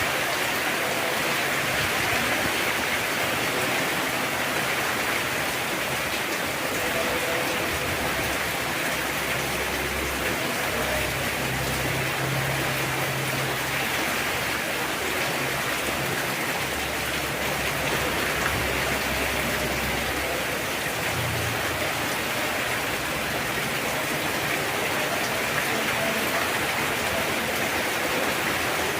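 Heavy rain falling steadily, an even, unbroken hiss of downpour, with a faint low rumble coming and going in the middle.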